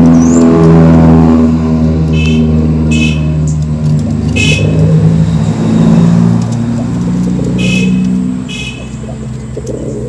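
A motor vehicle's engine droning steadily, shifting pitch every second or two and fading away after about eight seconds, with a few short high chirps over it.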